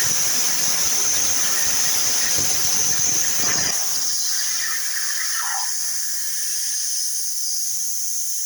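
CNC plasma cutter making a cut: the arc and cutting air give a steady high-pitched hiss and whine, with a rougher lower noise that falls away about four seconds in.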